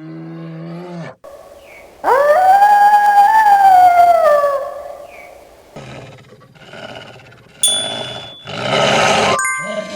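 A wild animal's long howl-like call that swoops up and then slowly sinks, a little after the start, followed by rougher, harsher calls in the second half.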